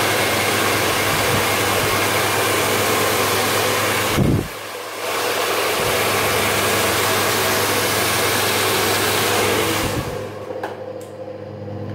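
Handheld hair dryer blowing steadily, with a short drop in level a little past four seconds, then switched off about ten seconds in.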